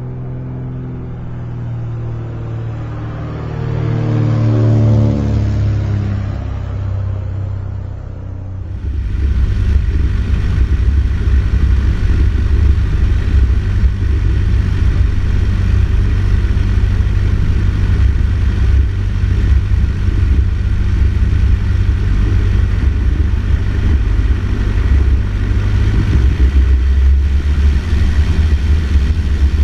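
A short musical intro jingle for about the first nine seconds. Then the Cessna 152's four-cylinder Lycoming engine and propeller drone loudly and steadily, heard from inside the cabin, with a strong low hum and cabin noise.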